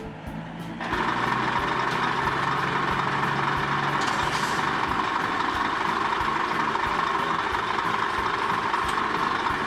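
Cartoon fire trucks' engines running as they drive: a steady rushing noise sets in about a second in, with a low engine hum under it for the first few seconds.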